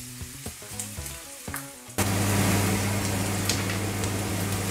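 Sliced onions sizzling as they fry in oil in a nonstick pan, with a plastic spatula clicking against the pan. About two seconds in, the sizzling jumps abruptly louder over a steady electrical hum. Faint background music plays in the first part.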